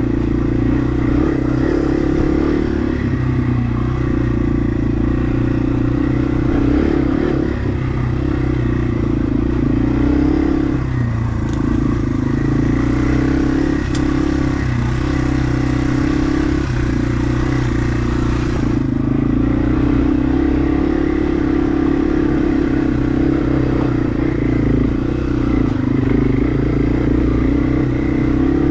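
Yamaha TW200's single-cylinder four-stroke engine running under way at a steady, even engine speed as the bike rides along a dirt trail.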